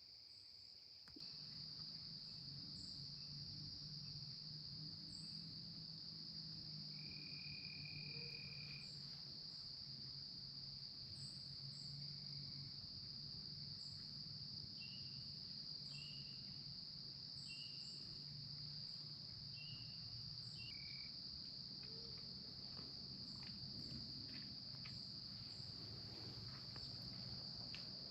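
Insect chorus in the woods: a continuous high-pitched trill with short chirps scattered over it and a low steady drone underneath. The sound steps up in level about a second in.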